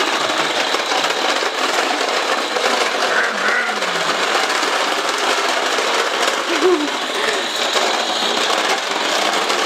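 A toddler's toy push lawn mower rattling and whirring steadily as it is pushed along.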